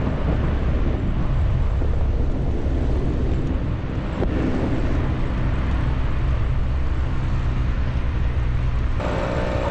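Heavy wind rumble on the microphone over a motorcycle engine running steadily at road speed. Near the end a steady higher hum of several tones joins in.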